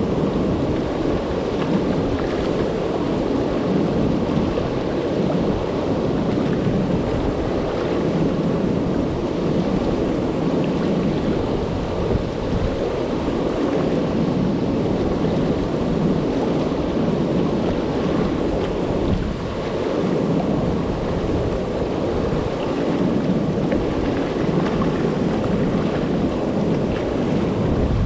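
Steady rushing of river water pouring over a low dam and churning in the turbulent water below it.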